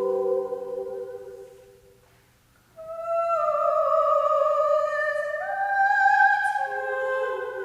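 A choir's held chord dies away in the first couple of seconds, then after a brief hush high voices come in singing a slow, sustained melody that slides down and steps up, with a second, lower line joining near the end.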